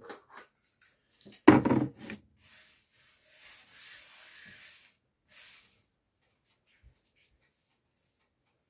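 A loud knock as something is set down on the counter about a second and a half in, then hands rubbing over a board on the worktop, a soft dry rasp in two short stretches.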